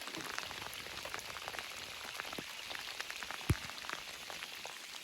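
Steady rain falling, with many small drop ticks and one dull thump about three and a half seconds in.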